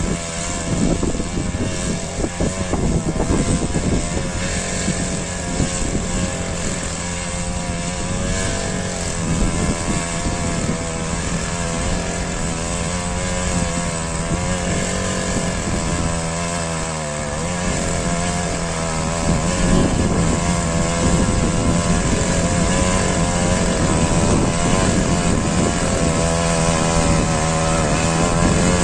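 Small engine of a walk-behind power weeder running steadily while it tills between crop rows. Its pitch sags briefly about two-thirds of the way through.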